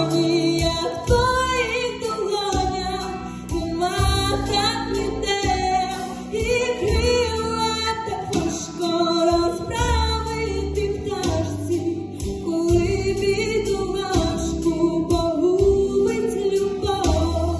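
A song with female singing over an instrumental backing with a steady bass line and beat.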